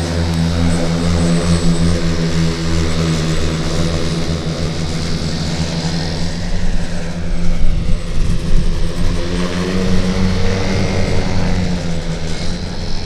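Airspeeder Mk2 electric multicopter flying, its propellers and electric motors making a loud, steady droning hum with wavering higher motor tones. The sound turns louder and gustier around the middle, then settles back to a steady drone.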